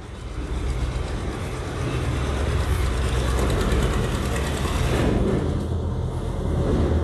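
Steady rumbling noise of a passing vehicle, swelling in over the first second and then holding.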